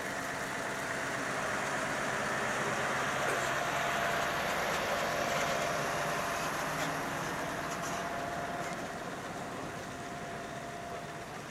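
Scania truck and trailer unit driving slowly past, its engine and tyres getting louder as it draws level about halfway through, then fading as it moves away.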